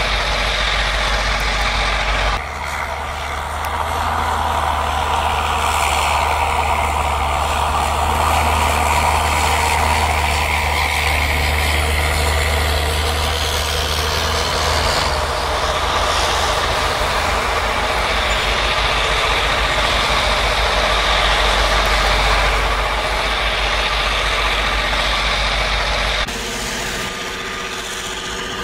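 Diesel locomotives of a rotary snowplow train running hard, a loud steady heavy engine drone with a broad rushing noise over it. The sound changes abruptly about two seconds in and again near the end.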